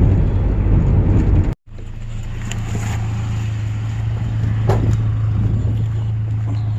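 Vehicle engine running with a steady low hum. It cuts out abruptly for a moment about one and a half seconds in, then resumes with a couple of light knocks.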